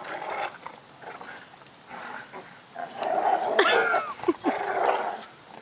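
A dog whining and yipping, with a few short high cries that rise and fall about three and a half seconds in.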